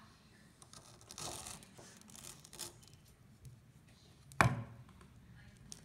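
Kitchen knife sawing into a Raffaello, a crisp wafer ball coated in coconut, on a wooden cutting board: two short bursts of cutting noise, then a single sharp knock about four and a half seconds in.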